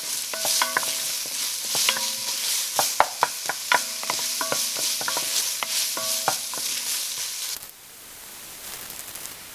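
Chopped onions sizzling in hot oil in a soup pot on medium-high heat while being stirred, the spoon clacking and ringing against the pot many times. A little before the end the clacking stops and the sizzle drops to a fainter hiss.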